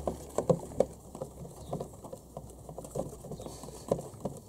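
Irregular light clicks and taps, several a second, from a screwdriver driving a long screw into the plastic body of a ride-on toy tractor.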